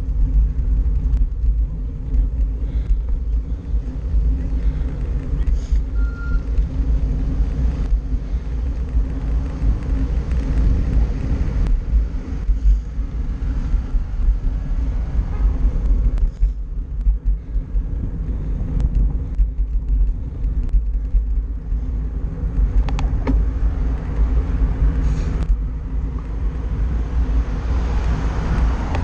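Steady, loud low rumble of wind buffeting the microphone and road noise while riding along a street, with car traffic alongside and a few brief clicks.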